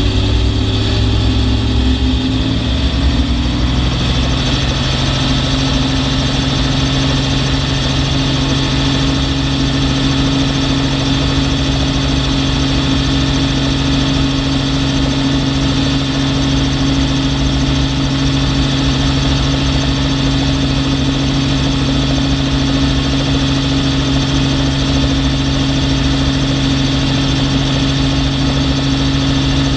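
Helicopter engine and main rotor running on the ground, heard close up from a mount on the outside of the aircraft. The pitch steps up about four seconds in, then holds steady.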